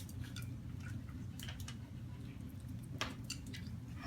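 Soft wet clicks and squishes of a baby Quaker parrot taking hand-feeding formula from a syringe, a few short smacks scattered through, the sharpest about three seconds in, over a steady low hum.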